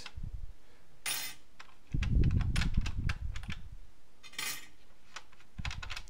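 Metal jumper plates being slid off a loudspeaker's binding-post terminals: two brief metallic scrapes, about a second in and again past four seconds, with a louder dull handling rumble between them.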